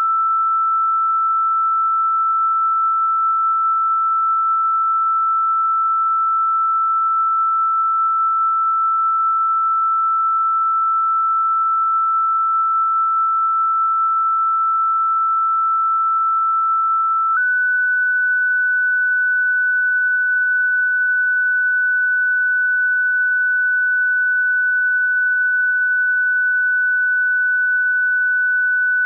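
A single pure electronic sine tone, the kind played as a 'healing frequency', held steady at one pitch. About seventeen seconds in it jumps to a slightly higher pitch and holds there.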